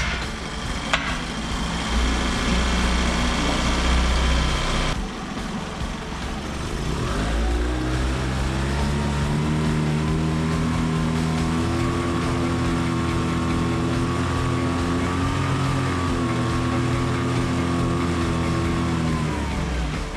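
8 hp four-stroke outboard engine fitted with a 9.9 hp carburetor, pull-started and running at once. About seven seconds in it is run up to a steady high speed, held there, and throttled back down near the end. On this carburetor it runs noticeably smoother than it did on its original 8 hp carburetor.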